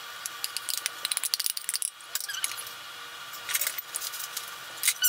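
Irregular metallic scrapes and clinks as a stainless steel pot is scraped out, emptying a thick white sauce onto a pie in a glass baking dish.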